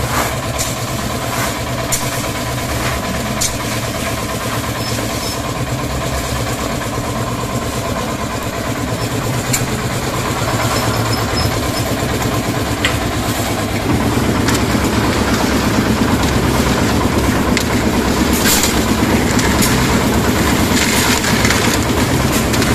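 Portable concrete mixer's engine running steadily with the drum turning. About 14 s in it grows louder and rougher as the drum holds gravel, with sharp knocks now and then.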